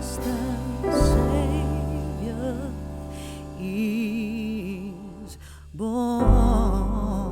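Slow, tender background song: a voice holds long notes with vibrato over sustained chords, with new chords coming in about a second in and again near the end.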